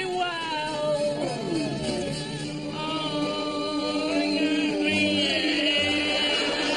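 Singing over music: a woman's voice holding long notes, with more than one voice heard at once.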